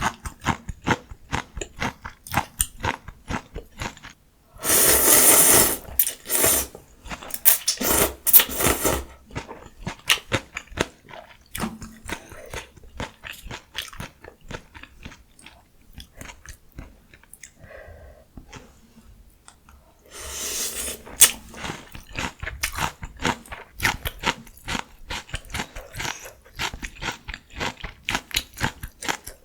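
Close-miked eating of ramyun noodles and mustard leaf kimchi: rapid wet chewing with crunchy bites. There are two longer, louder noisy stretches, about five seconds in and again about twenty seconds in.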